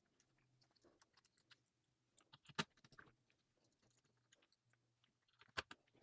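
Faint scattered clicks and taps from handling the GPD MicroPC 2's bottom cover as it is pressed back into place. Two sharper clicks stand out, one about two and a half seconds in and one near the end.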